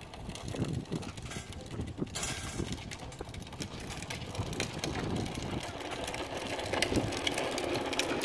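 Scattered metallic clicks and knocks as nuts and bolts are worked on a steel headache rack's mounting brackets, over a low outdoor rumble that grows louder toward the end.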